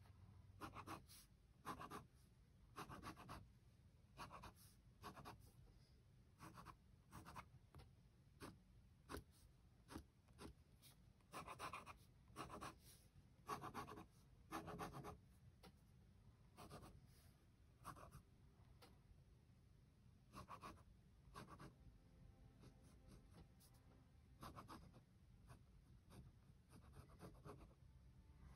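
Faint scratching of a Pilot G2 0.38 mm gel pen drawing on sketchbook paper, in many short separate strokes with brief quiet gaps between them.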